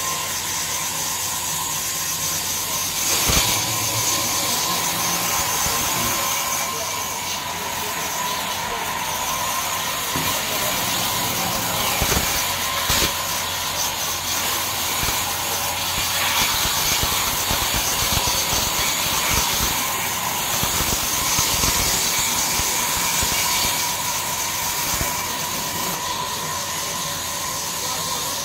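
Sawmill band saw running steadily, a constant high whine over a hiss. A few sharp wooden knocks come through as planks are handled, once a few seconds in and again around the middle.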